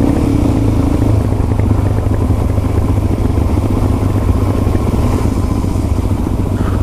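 Motorcycle engine running steadily while riding at road speed, heard from on the bike with wind rushing over the microphone; the engine note changes slightly about a second in.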